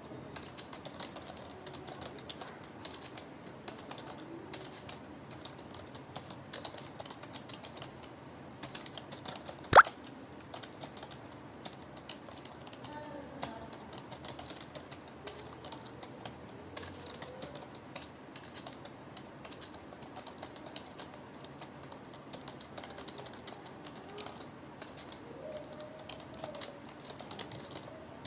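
Computer keyboard keys clicking in a quick, irregular stream of continuous typing, with one much louder sharp knock about ten seconds in.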